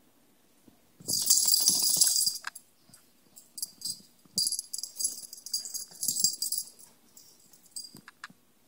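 Metal tags on a dog's collar jingling in irregular bursts as the dog scratches itself. There is a long loud run about a second in, then shorter shakes.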